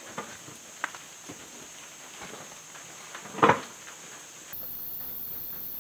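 A few light knocks and clicks of a wheel and tire being fitted onto a truck rear axle's hub, with one louder knock about three and a half seconds in. Near the end a steady hiss takes over.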